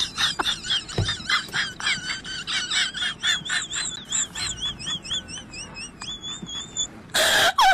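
A quick run of high, warbling chirps, about three or four a second, that stops near the end. A short, loud hiss-like burst follows it.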